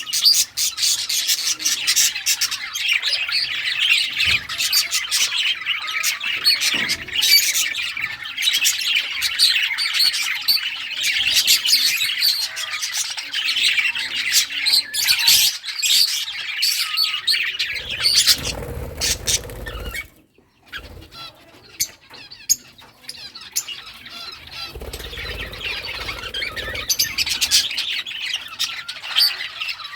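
A group of budgies (budgerigars) chattering and chirping continuously in dense, rapid warbles and squawks, with a short lull about two-thirds through. Two short stretches of low rumble sit under the chatter in the second half.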